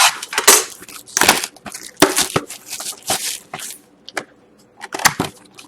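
A sealed box of Panini Crown Royale hockey cards being unwrapped and opened by hand: irregular crinkling and rustling of wrapping and cardboard, with sharp clicks. There is a short pause about four seconds in.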